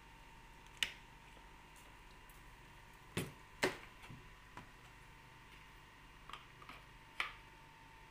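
Hard plastic tricycle parts (wheels and seat) clicking and knocking against each other and the table as they are handled, about eight sharp knocks at irregular spacing, the loudest two a little past three seconds in. A faint steady hum runs underneath.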